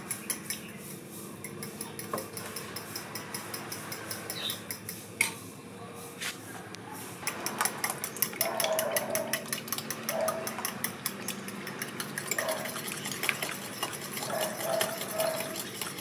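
A utensil beating eggs in a glass bowl, clinking rapidly and evenly against the glass.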